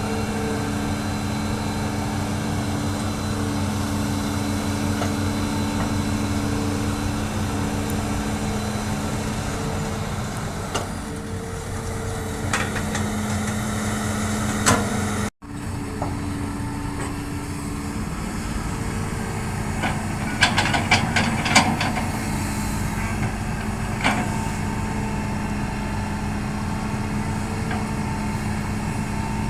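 Hitachi excavator's diesel engine running steadily under work, with a single sharp knock just before halfway and a quick run of clanking knocks about two-thirds in, then one more. The sound drops out for an instant just after the first knock.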